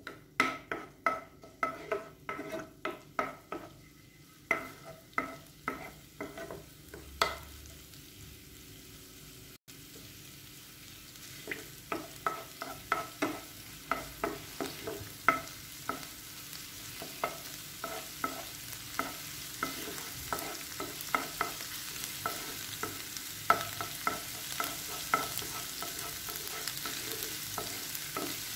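A wooden spoon stirring minced garlic in hot olive oil in a nonstick frying pan, knocking against the pan in quick runs of a couple of taps a second, each tap ringing briefly. The stirring stops for a few seconds about a third of the way in. A faint sizzle of the frying oil grows steadily underneath.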